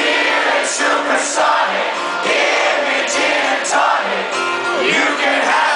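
Concert crowd cheering and singing together over live band music, loud and continuous.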